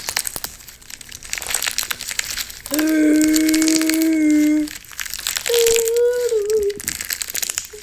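Dense crackling and crunching of hardened wax being crushed. A voice holds two long steady notes over it, about three and five and a half seconds in.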